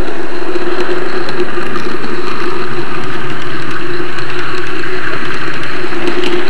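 N-scale model train running along the track, heard close from the miniature camera riding on it: a steady motor whir and wheel-on-rail rumble with occasional faint clicks.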